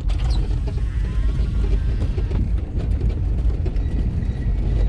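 Steady low rumble of a vehicle in motion, heard from on board.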